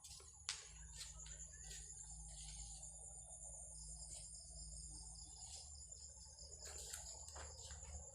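Crickets chirping steadily in a faint, high-pitched trill, with a sharp click about half a second in.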